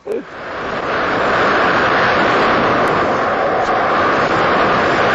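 Wind rushing over the microphone of a camera carried on an unpowered dynamic soaring glider in fast flight. It builds up over about the first second, then holds loud and even.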